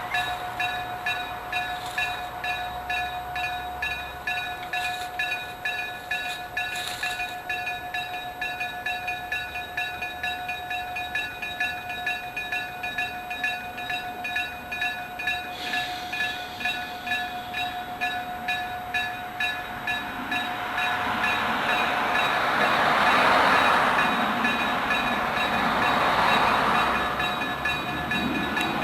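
Electric-bell (denshō) level-crossing warning ringing in a steady, even rhythm of struck bell tones. About twenty seconds in, an electric railcar's running noise builds up beneath the bell and grows louder as the train comes through.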